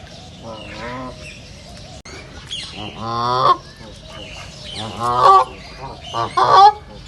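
Ducks calling: a series of drawn-out, wavering calls, a faint one under a second in, then louder ones about three, five and six and a half seconds in.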